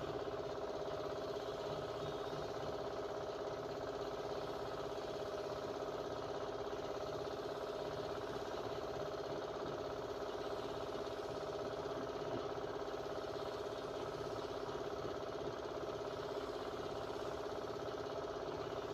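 Steady machine hum from a running motor, unchanging throughout.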